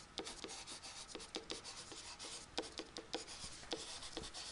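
A stylus writing on a tablet as words are handwritten: a faint, irregular run of quick ticks and scratches.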